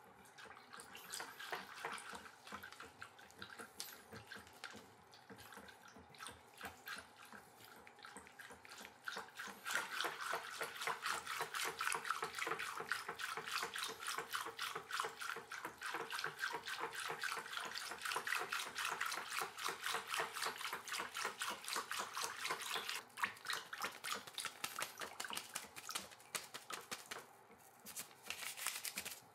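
A wire whisk beating water in a plastic bucket: rapid, even splashing strokes, softer at first and louder from about a third of the way in, easing near the end. The water is being mixed with sodium polyacrylate powder and slowly thickening into soap-bubble solution.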